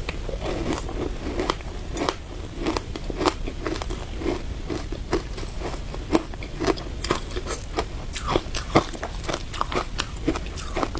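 Teeth biting into and chewing a frozen block of matcha shaved ice, with sharp, irregular crunches several times a second.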